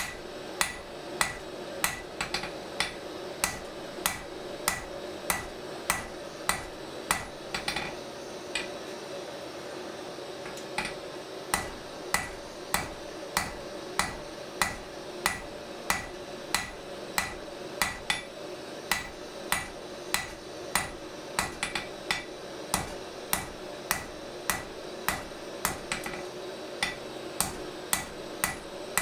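Blacksmith's hand hammer forging a red-hot steel drawknife blade on an anvil: steady blows about one and a half a second, each with a short bright ring from the anvil, with a pause of a couple of seconds about a third of the way in. A steady hum runs underneath.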